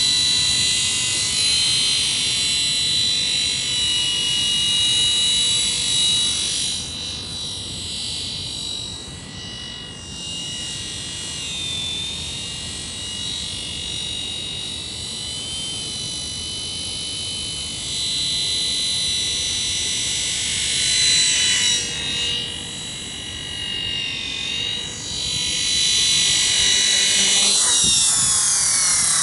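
Helimax Black Hawk electric RC helicopter in flight: a steady high motor-and-rotor whine that fades twice as it flies farther off and swells again as it comes back, the pitch shifting near the end as it comes down to land.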